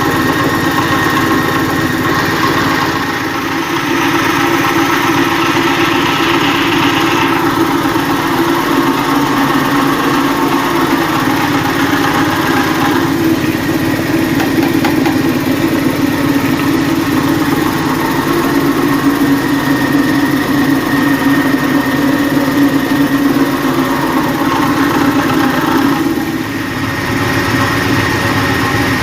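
An 8-inch spice grinding machine running steadily while grinding garlic, its level dipping briefly about three seconds in and again near the end.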